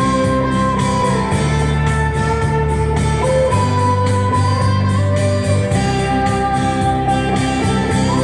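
Karaoke backing track with an electric guitar playing long held notes that slide from one pitch to the next, over bass and a steady beat.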